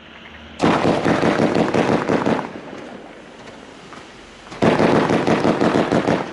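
1.2-inch 50-shot firework battery (cake) firing its white strobe waterfall and purple star effects: two loud runs of dense, rapid popping and crackling, each about two seconds long, starting about half a second in and again near five seconds in, with fainter crackle and hiss between.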